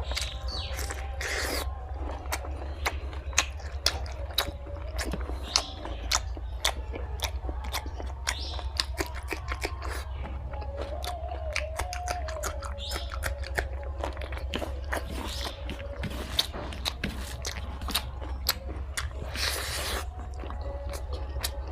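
Close-up chewing and biting of pork fry with rice: a dense, irregular run of wet clicks and smacks over a steady low hum.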